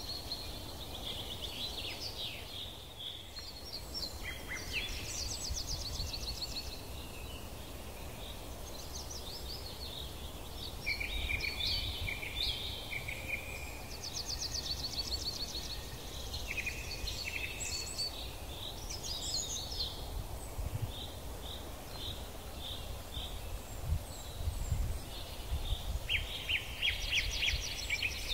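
Several songbirds singing in overlapping trills and chirps, over a low outdoor rumble, with a few dull thumps near the end.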